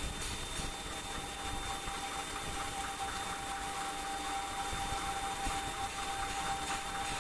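CNC lathe turning a metal bar under flood coolant: a steady hiss of coolant spray over the machine's running noise, with a steady high whine.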